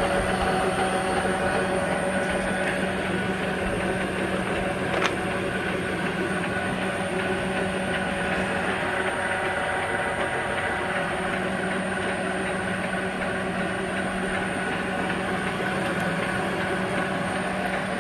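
Sharp 1640V engine lathe running with its spindle turning on the electronic variable-speed drive and 7½ hp spindle motor: a steady mechanical hum with a constant tone. A single light click about five seconds in.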